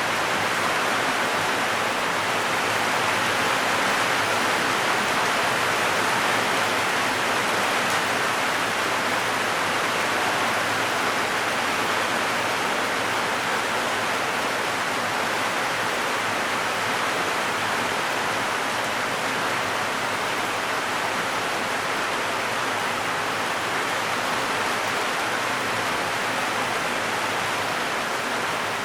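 Heavy rain drumming steadily on a zinc roof, a dense, even hiss with no let-up.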